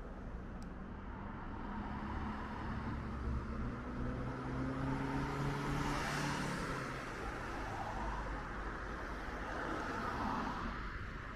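Street traffic: a car drives past, its engine note rising and its tyre noise loudest about six seconds in, with another vehicle swelling near the end.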